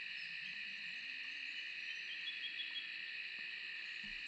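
Steady chorus of evening insects: a continuous high-pitched shrilling that holds level throughout.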